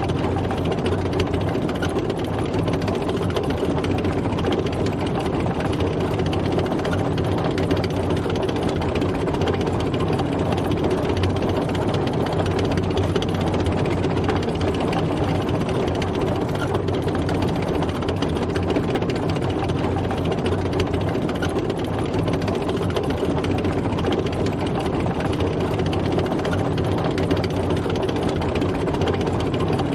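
Tank driving: its engine running steadily under a continuous fast clatter.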